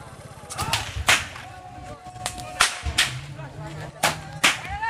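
Whips cracking: several sharp cracks at irregular intervals, loudest near the end.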